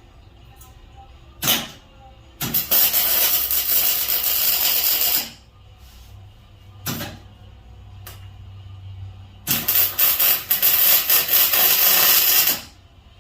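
Electric arc welding on a stainless steel grill frame: a brief strike of the arc, about three seconds of steady crackling hiss, another brief strike, then a second run of about three seconds of crackling.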